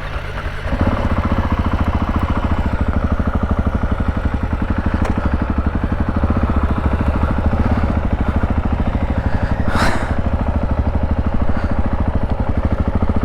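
Motorcycle engine running steadily with a fast even pulse, getting louder about a second in. There is one short sharp noise about ten seconds in.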